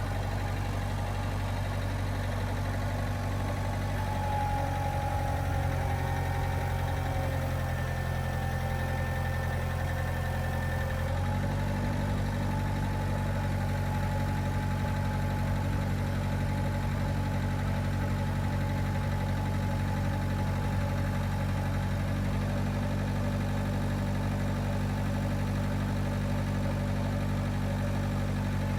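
An engine running steadily at idle; its note changes about eleven seconds in, then holds steady again.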